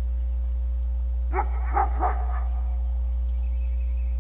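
A dog barking three quick times in a row about a second and a half in, over a steady low hum.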